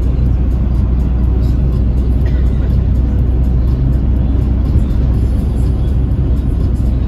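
Steady low rumble of a moving GAZelle minibus: engine and road noise.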